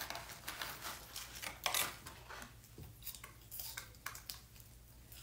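Light, irregular clicks and scrapes of wooden chopsticks picking food from plastic trays and a paperboard takeout box, the sharpest tap about a second and a half in.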